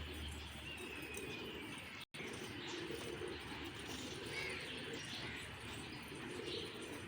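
Pigeons cooing faintly, with a few short chirps from small birds; the sound cuts out for an instant about two seconds in.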